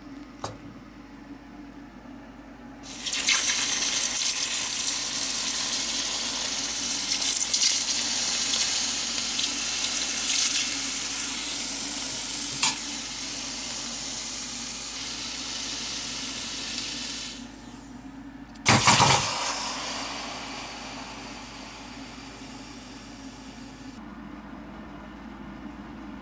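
Water dumped onto a red-hot nickel ball and the burning plastic multimeter under it, hissing and sizzling loudly as the metal is quenched, slowly fading over about fourteen seconds. A short loud burst of noise comes a little later.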